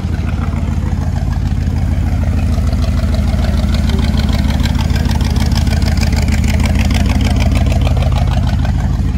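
A car engine running loud and close, with a rapid, even beat of exhaust pulses. It swells a little through the middle and eases off near the end.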